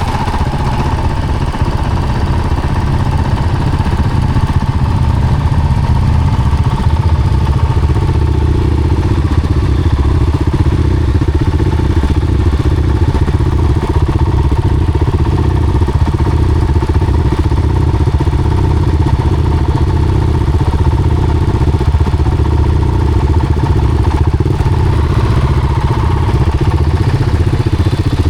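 Off-road vehicle engine running steadily under way, a continuous loud drone.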